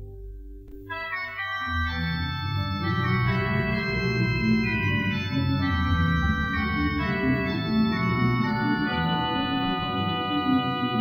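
Grand pipe organ of Chartres Cathedral improvising: after a lull, a new passage of sustained chords enters high up about a second in, and deep bass notes join about a second later, filling out a dense, full texture.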